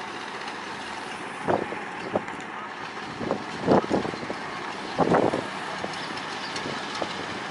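A boat engine running steadily, with several short knocks and clanks scattered through, the loudest about halfway and about two-thirds of the way in.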